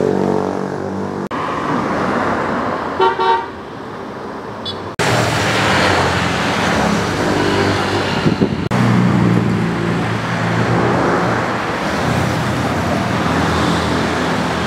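Road traffic: motor vehicles running past, with a short horn toot about three seconds in. The sound changes abruptly a few times.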